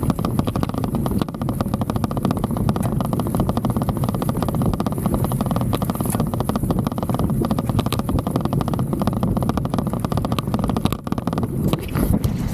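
Handlebar-mounted Insta360 X3 camera rattling rapidly in a loose mount as a mountain bike rolls over rough grassy ground, over a steady low rumble.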